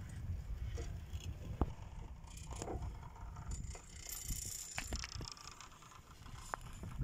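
Fixed-grip double chairlift running: a low, uneven rumble with scattered clicks and creaks from the moving rope and chairs.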